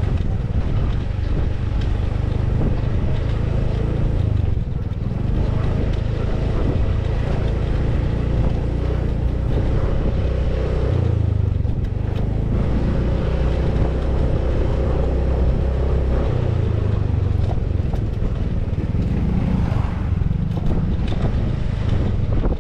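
Small motorcycle's engine running steadily while riding along a dirt road, its pitch wavering a little as the throttle changes, with a heavy low rumble of wind and road noise on the microphone.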